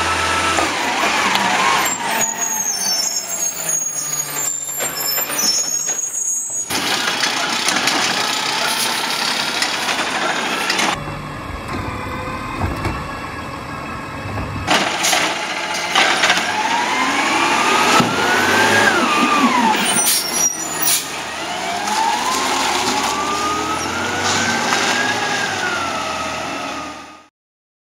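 Side-loading garbage trucks' diesel engines running, in several short clips cut together. Twice the engine revs up and back down.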